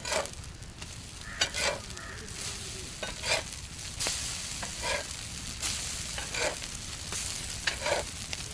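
Many small fish-and-egg omelettes sizzling in oil on a large flat metal pan. A short scraping knock, like a spatula on the pan, comes about every second and a half as they are worked and turned.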